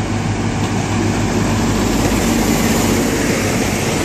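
Class 43 HST power car's diesel engine running as the train pulls into the station past the platform: a steady low hum that grows slightly louder as the power car comes alongside.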